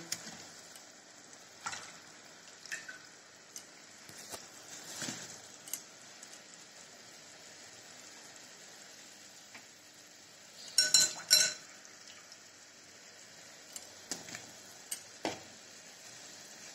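Apple slices being added to sugar syrup simmering in a metal kadhai: a faint steady bubbling with scattered light knocks, and a louder ringing clatter of metal against the pan about eleven seconds in.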